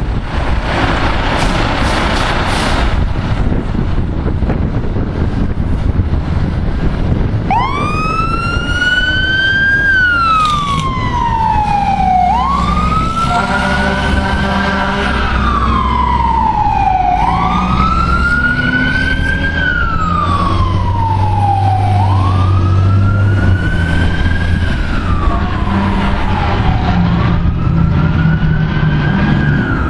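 Fire engine siren wailing, rising quickly and falling slowly about every five seconds. It starts a few seconds in, over the truck's low engine rumble. A burst of rushing noise fills the first few seconds.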